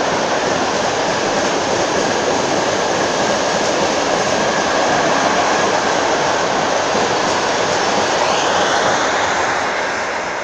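An empty freight train rolling past: a loud, steady noise of its wagons and wheels on the rails, easing off slightly near the end.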